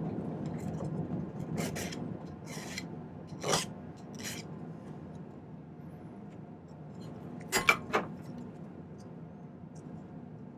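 Hand file rasping on a small silver piece in a few short strokes, with two sharp metallic clicks about three-quarters of the way through.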